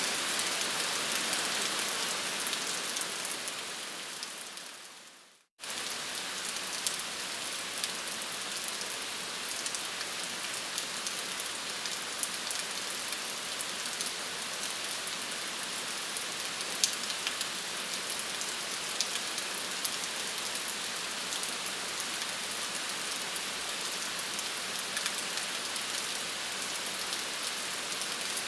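Steady rain hissing, with sharp ticks of single drops here and there. About three seconds in it fades away to silence, then cuts straight back in at full level a couple of seconds later.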